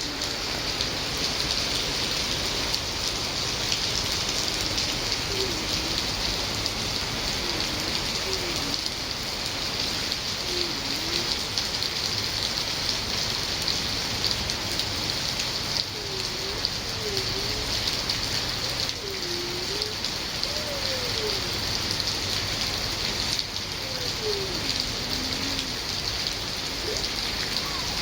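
Steady rain falling, an even dense hiss that holds at the same level throughout.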